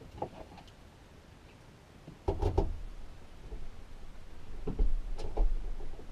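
Knocks and clunks of work on the van's floor framing: one loud knock with a short clatter a little over two seconds in, lighter handling sounds, then two more thumps near the end.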